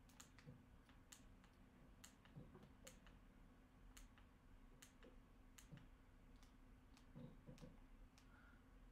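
A dozen or so faint, irregular clicks of TV remote-control buttons being pressed to scroll and move the cursor, over near-silent room tone.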